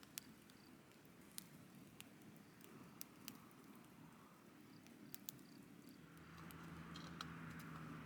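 Near silence with a handful of sparse, faint sharp snaps at uneven intervals; a low steady hum comes in about six seconds in.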